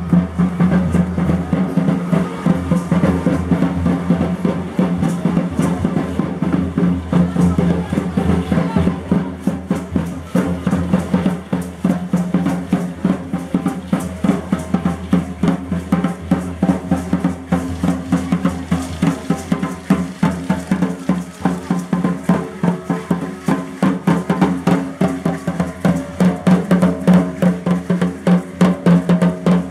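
A large upright hide drum (huehuetl) beaten in a steady, driving rhythm for Aztec-style dancing.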